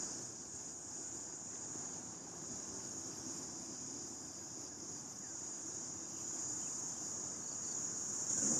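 A steady, high-pitched chorus of insects, over faint low background noise.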